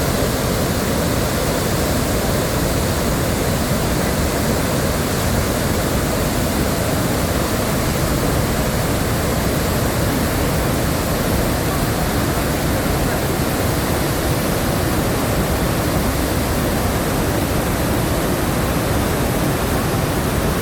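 Chitrakoot waterfall's water falling, a loud, steady roar of noise without let-up.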